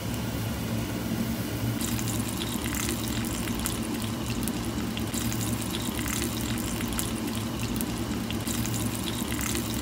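Dumplings pan-frying in hot oil: steady sizzling with fine crackles and pops, the crackling growing busier about two seconds in.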